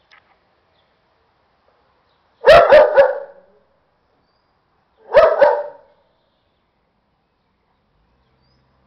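Dog barking: a quick run of three sharp barks about two and a half seconds in, then two more about five seconds in.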